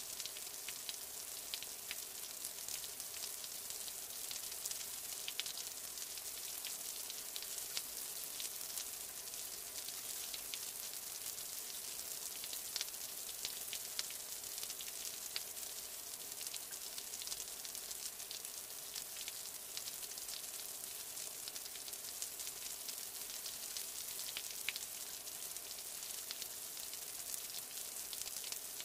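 Steady rain sound: a fine crackling hiss of falling drops with many small ticks of individual drops through it.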